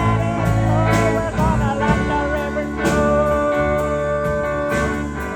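A song with slide guitar over a bass line and a steady beat.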